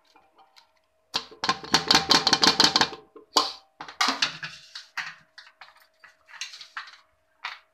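Chopped onion pieces tipped off a plastic board into a steel pot: a quick, dense clatter of pieces landing for about two seconds, then scattered taps and knocks as the last pieces fall and the board knocks on the pot.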